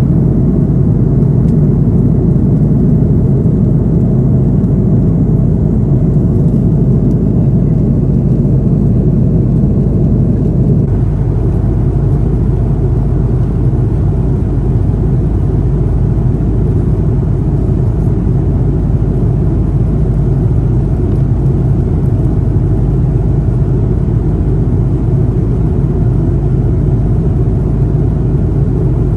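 Steady low rumble of jet engine and airflow noise inside the passenger cabin of an Airbus A330-200 airliner, with a slight change in its tone about eleven seconds in.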